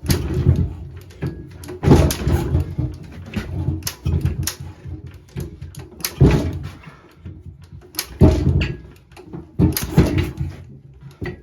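JAP Model 5 single-cylinder engine of a 1947 Clifford rotovator being pulled over by hand for starting, a hard pull about every two seconds, turning over against compression without catching.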